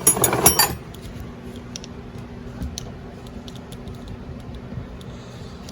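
Metal parts clattering and clinking as the engine and tools are handled on the workbench, a quick cluster of sharp clicks in the first second, then scattered light ticks and clicks.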